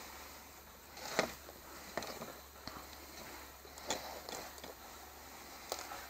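Faint handling sounds: a few light, scattered clicks and knocks as hands handle a small car-alarm siren and its wires.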